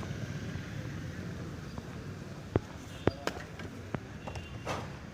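Several sharp knocks and clicks, irregularly spaced over the second half, over a steady low background noise.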